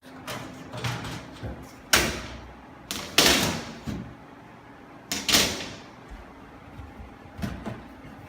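A series of sharp knocks and clattering bangs a second or two apart, the loudest about two, three and five seconds in, some with a short ring after them, over a faint steady hum.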